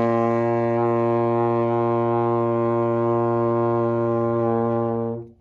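Trombone with the slide locked in first position holding one steady low B-flat long tone. It tapers slightly and stops about five seconds in as the player runs out of air.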